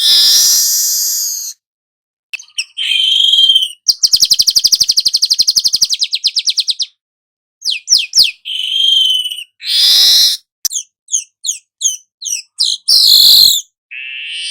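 Manyar kepala emas (golden-headed weaver) singing a varied series of high, squeaky phrases. About four seconds in comes a long, fast, buzzy rattle lasting nearly three seconds, and near the end a quick run of short falling notes. The phrases are broken by abrupt silent gaps.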